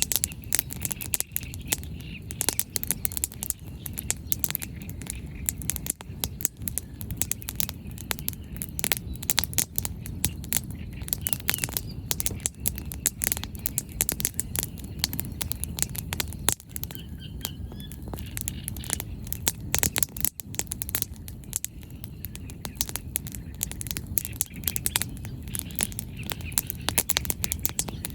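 Wood bonfire crackling: dense, irregular pops and snaps of burning firewood over a steady low rumble.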